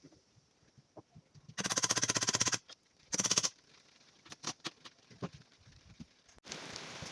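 Two short bursts of rapid, machine-gun-like hammering from a power tool driving fasteners, the second shorter, followed by several light knocks and clicks. Near the end steady rain on a surface comes in.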